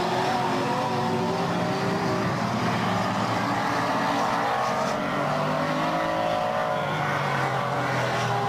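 Two short-track race trucks running flat out side by side, their engines loud and steady, with the engine pitch dipping and climbing as they go through the corners.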